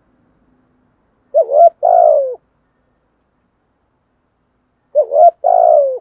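Spotted dove cooing: two phrases about three and a half seconds apart, each a short coo followed by a longer, falling coo.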